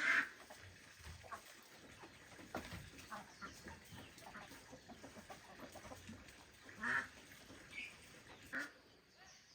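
Farm poultry calling in a few short squawks. The loudest comes at the start and others come about seven seconds in, over faint shuffling.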